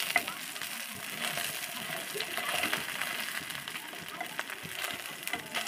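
A whole goroi fish frying in hot oil in a kadai: a steady sizzle with scattered sharp pops and crackles.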